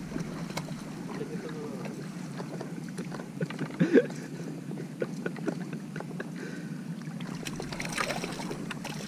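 A hooked carp splashing and thrashing at the surface as it is pulled to the bank on a pole rod, in scattered small splashes, with a longer burst of splashing in the shallows about eight seconds in. A short vocal exclamation about four seconds in.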